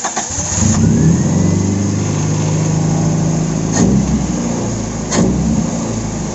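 Carbureted Toyota 4A-FE four-cylinder engine in an AE92 Corolla cranking briefly after two pumps of the accelerator, catching within about a second and running steadily at a fast idle. It starts readily, a sign the hard-starting problem is cured. Two brief clicks come through about four and five seconds in.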